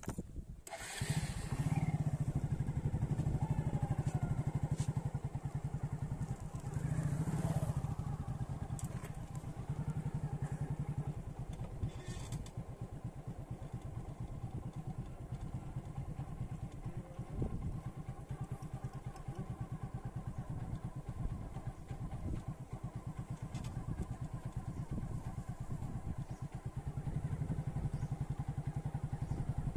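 Motorcycle engine running under way, heard from the rider's seat, with a fast, even firing pulse. It grows louder about a second in and again near the end as the throttle opens.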